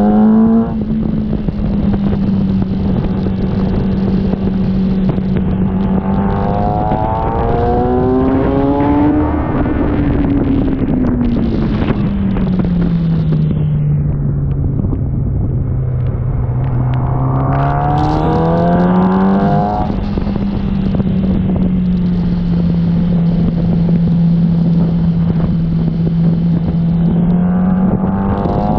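Sport motorcycle engine running hard on track, heard onboard with wind rushing over the microphone. Its pitch holds steady, drops slowly about halfway through as the rider eases off, then climbs back up, with rising sweeps of acceleration twice along the way.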